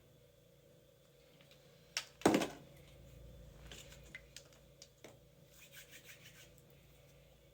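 Hands working epoxy putty into a hole in drywall: a sharp knock about two seconds in, the loudest sound, then light scratching and small clicks.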